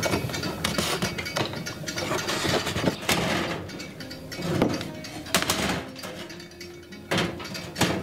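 Irregular wooden clicks and knocks as the small turn-latches and observation-window cover of a wooden Flow-style beehive box are handled.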